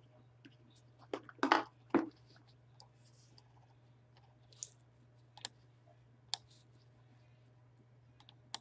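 Computer mouse clicks and key taps, a handful of sharp clicks with a small cluster about a second in and single clicks spread through the rest, over a faint steady low electrical hum.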